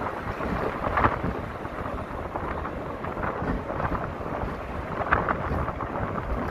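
Wind buffeting the microphone of a phone mounted in the open bed of a moving pickup truck, over a deep road rumble, with a couple of louder gusts about a second in and again about five seconds in.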